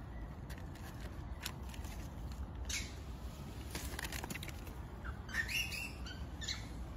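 Young macaque giving a few short, high squeals about five and a half seconds in, with one more shortly after, over scattered clicks and rustles of monkeys moving on dry leaves.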